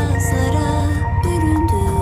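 Background music: sustained melodic notes over a steady low rumble.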